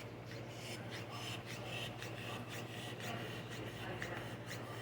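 Scattered small clicks and rubbing noises over a steady low hum.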